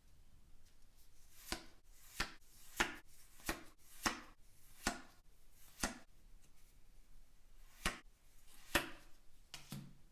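Trading cards being handled and set down, making about ten sharp, separate taps and clicks on a hard surface at uneven intervals.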